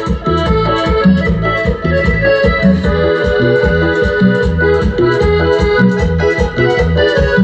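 Live dance band playing loud through amplification, an electronic keyboard with an organ-like sound carrying the melody over a steady bass beat.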